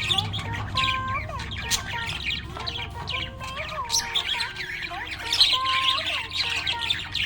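Budgerigar chirping and chattering in quick, continuous squeaky bursts.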